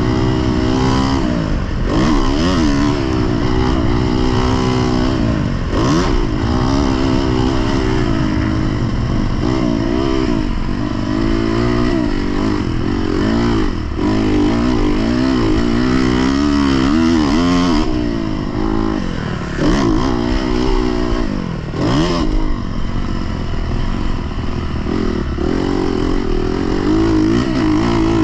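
Dirt bike engine heard onboard while riding a motocross track, revving up and easing off over and over, its pitch climbing and falling every second or two, with a few sudden drops where the throttle is chopped or a gear is changed.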